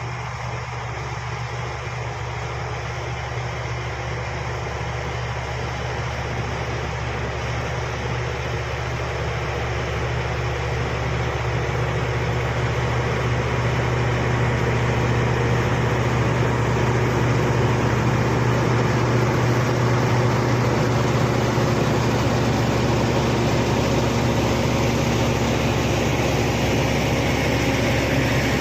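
Bulldozer's diesel engine running steadily with a low drone, growing gradually louder over the first half and then holding.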